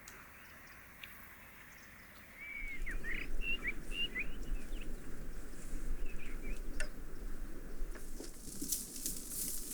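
Birds chirping in short calls, with a rustling, handling-type noise that comes in about two seconds in and a few sharp clicks near the end.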